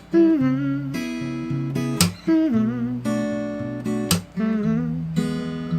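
Acoustic guitar strumming chords with no singing. There is a hard strum about every two seconds, and the chords ring on between the strums.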